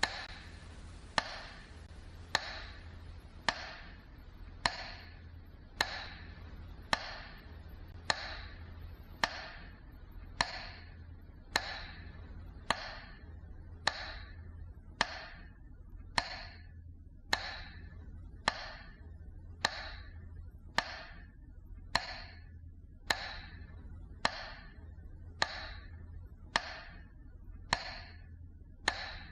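Slow, evenly spaced metronome beats, about one a second, each a sharp click with a short ringing tail, over a low steady hum. The beats mark a broadcast minute of silence.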